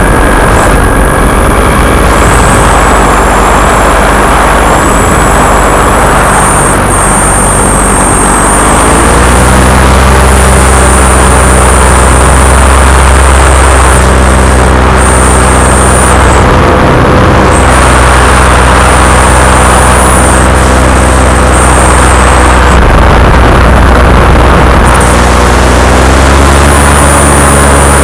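Paramotor engine and propeller running loud and steady in flight. The engine picks up revs about nine seconds in, and again near the end.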